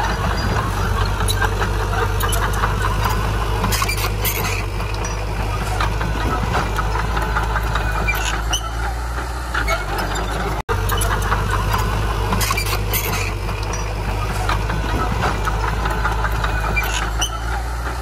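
Heavy diesel engine of the earthmoving machinery running steadily, with scattered short high clicks or squeaks over it. The sound cuts out for an instant about ten and a half seconds in.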